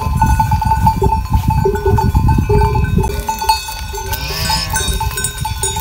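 Bells worn by a grazing flock of sheep and goats clanking and ringing on and off throughout, with one bleat from the flock about four seconds in.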